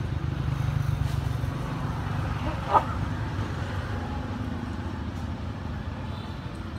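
Steady low rumble of a motor vehicle engine, louder in the first couple of seconds and then easing off. One brief, sharp sound stands out near the middle.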